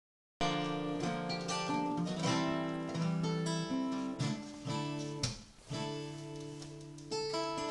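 Acoustic guitar music, plucked notes and chords ringing. It starts about half a second in, with a brief lull past the middle.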